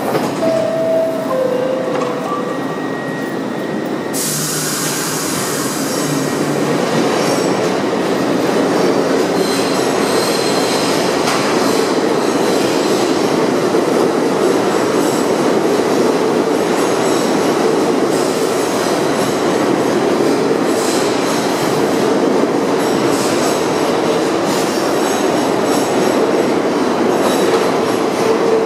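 R62A subway train leaving the station: a falling two-note door chime near the start, then the train starts up about four seconds in and runs past steadily louder, with a steady whine, wheel squeal and rail clatter as the cars pull out.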